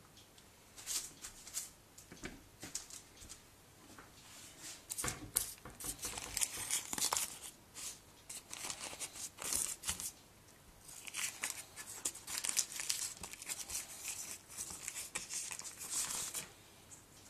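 Baking paper crinkling and rustling under hands as a puff pastry pocket is folded and pressed on it, in irregular crackly spells with short pauses.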